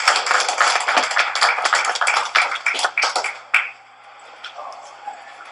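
Audience applauding, a dense patter of claps that thins out and dies away about three and a half seconds in.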